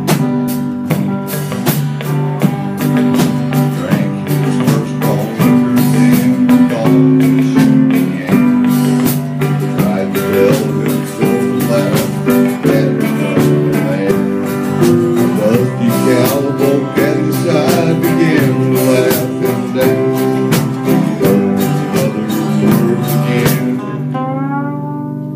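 Small country band playing live, with guitars, bass, dobro, piano and drums. Near the end the beat stops and a chord rings on.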